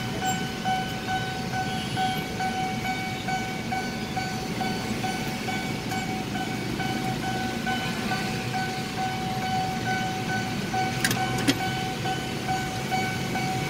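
Railway level-crossing warning bell ringing, an electronic ding repeating about twice a second, signalling that a train is approaching. Underneath is a steady hum of waiting traffic.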